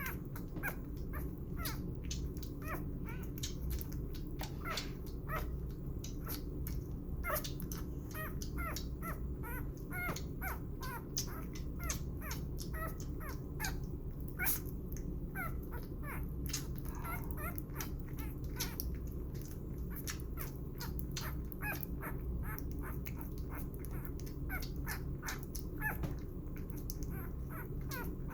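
Newborn puppy making a quick, irregular run of small squeaks and wet clicking suckling noises while feeding from a bottle, over a steady low hum.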